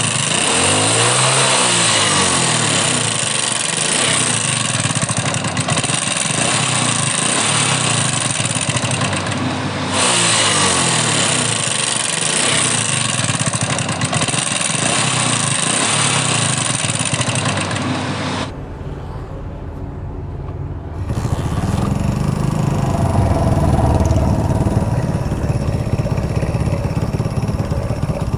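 Hero Honda Splendor's single-cylinder four-stroke engine running with its tappet cover off, making a loud mechanical noise that the mechanic plays to show how much work the worn, unserviced engine needs. The sound changes abruptly about 10, 18 and 21 seconds in, as separate takes follow each other.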